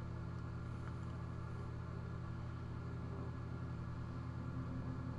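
Steady low electrical hum made of several stacked low tones, even throughout, like an appliance motor or mains hum.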